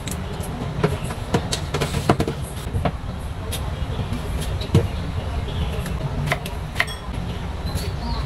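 Repeated sharp snaps of yardlong beans being broken by hand, then a wooden cutting board set down with a knock and a knife cutting eggplant on it, over a steady low hum.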